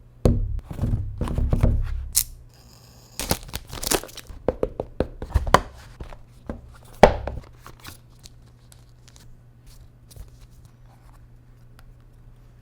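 Packaging being torn and crinkled, followed by a run of sharp clicks and taps as plastic packaging and parts are handled, the loudest click about seven seconds in. After about eight seconds only faint ticks remain over a low steady hum.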